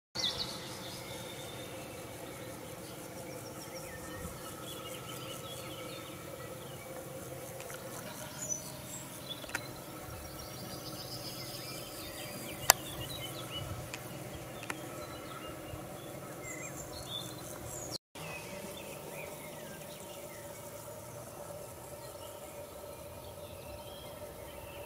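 Steady buzzing and chirping of meadow insects. One sharp click comes about halfway through, and the sound breaks off briefly a little after 18 seconds.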